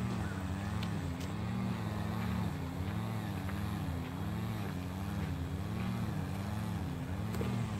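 An engine running steadily, its pitch wavering up and down in a regular rhythm about three times every two seconds.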